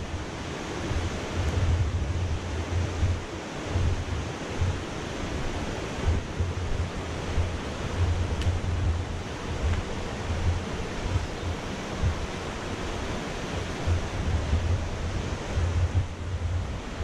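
A mountain creek rushing over rocks below the trail, a steady wash of water noise, with wind buffeting the microphone in irregular low gusts.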